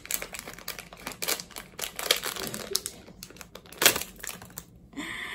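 Plastic packaging crinkling and crackling in short, irregular bursts as it is pulled open by hand.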